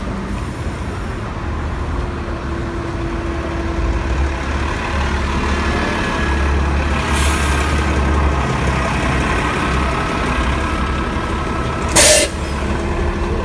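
City transit bus idling at a stop with a steady low engine rumble. About seven seconds in comes a faint hiss, and near the end a short, loud burst of compressed-air hiss from the bus's air system, typical of the air brakes or door pneumatics.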